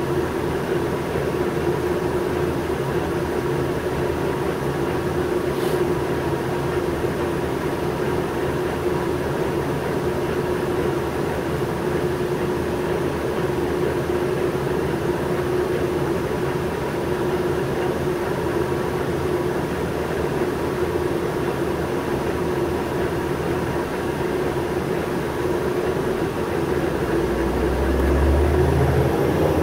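Interior of a natural-gas New Flyer C40LF transit bus on the move: steady engine and road noise with a constant whine running through it. Near the end a deeper rumble swells and a rising whine comes in.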